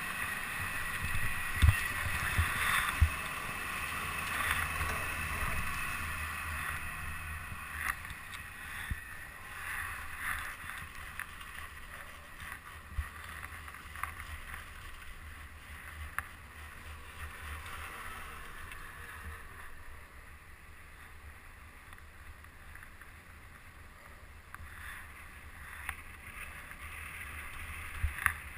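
Chairlift ride: a steady mechanical rumble and rushing air, with a few sharp clunks about two to three seconds in as the chair picks up the rider, then occasional lighter knocks as the chair rides on, the rumble easing somewhat.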